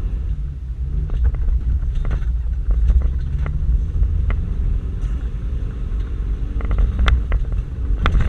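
Toyota Land Cruiser 120 rally car's engine and drivetrain heard from inside the cabin, driven hard over a rough dirt track: a deep rumble whose pitch rises and falls with the throttle. Sharp knocks and rattles come through several times, loudest about seven and eight seconds in.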